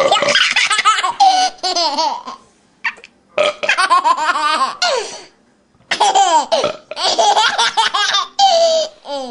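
A baby laughing at an adult's burp, in three fits of high, bubbling laughter with short pauses between them.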